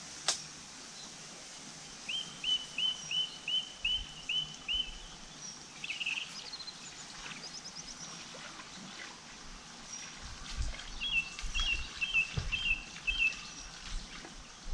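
A small songbird singing: two runs of repeated chirping notes, about three a second, with a single sharp click near the start.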